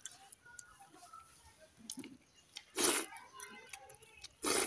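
Hand-eating sounds at a meal of watered rice: faint clicks and chewing noises, with two short, loud noisy bursts about three seconds in and again near the end.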